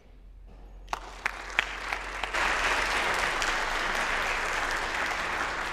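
Audience applauding: a few scattered claps about a second in, swelling into full, steady applause a little after two seconds in.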